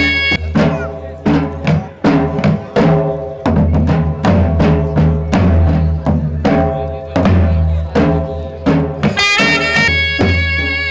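Gujarati folk music for a Charani raas: drums beating a steady rhythm over deep bass, with a melody line that comes back in strongly near the end.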